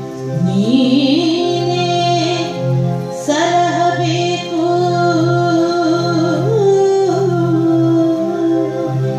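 Woman singing a Kannada Dasara pada in Carnatic style, solo. Her voice slides up near the start and then holds long notes with wavering ornaments, over a steady pulsing drone from an electronic tanpura box.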